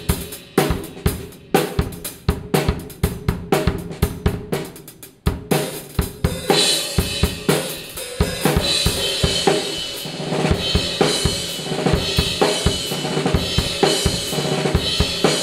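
Drum kit played with Meinl Classics Custom Brilliant B12 bronze cymbals: quick drum strokes for the first half, then crash cymbals ringing on continuously over a steady beat from about six seconds in.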